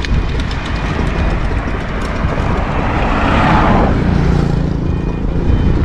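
Wind rumbling on the microphone of a camera riding along on a touring bicycle, mixed with road noise. A louder hiss swells and fades a little past halfway, followed briefly by a low steady hum.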